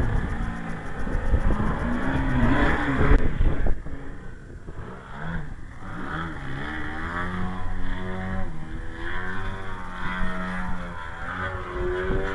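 Remote-control model airplane's engine buzzing in flight, its pitch rising and falling as the plane manoeuvres. Wind rumbles on the microphone for the first few seconds.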